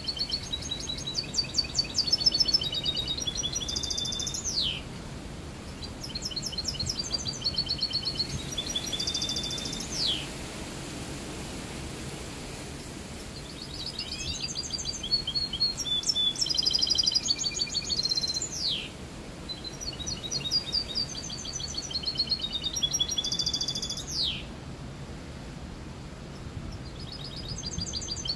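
A caged mixto, a finch–canary hybrid songbird, singing clean song: four long phrases of fast high trills and chirps, each ending in a falling whistled sweep, with short pauses between them.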